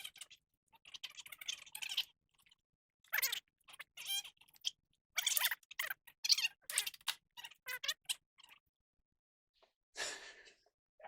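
Irregular metallic clinks, clatters and scrapes of hand tools and steering parts being handled during tie rod end work, in uneven clusters with short pauses.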